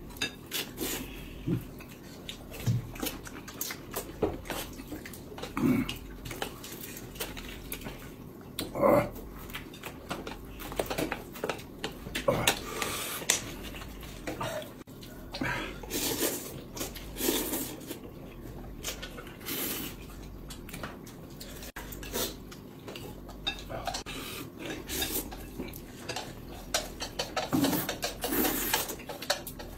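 Utensils clinking and knocking against bowls and dishes at irregular intervals, mixed with short eating noises.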